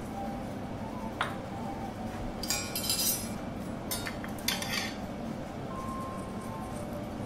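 Metal spatula and tongs clinking and scraping against a small porcelain plate: one sharp ringing clink about a second in, then a few short scrapes between about two and a half and five seconds in.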